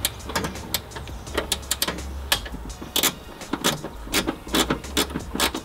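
Irregular metallic clicks and clinks of hand tools and a steel mounting bracket being worked into place among engine-bay parts, over a low rumble.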